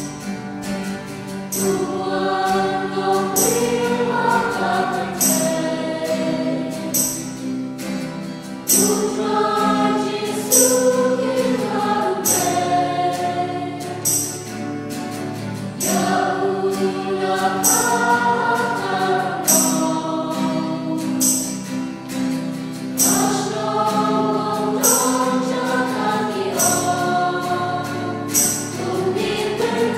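A small group of young voices singing a hymn together from song sheets, accompanied by a strummed guitar with a steady beat.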